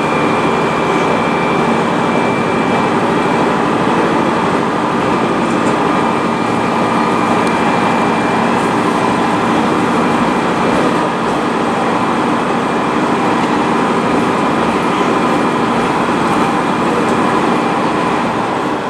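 Sanriku Railway Rias Line diesel railcar running along the line, heard from inside the passenger cabin: a steady engine and running-gear drone with a few held tones, easing slightly near the end.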